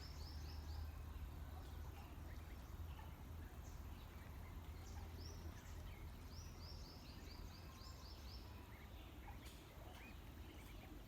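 Birds calling outdoors: two quick runs of high chirps, each note falling in pitch, one at the start and one about six seconds in, with scattered fainter calls over a steady low rumble.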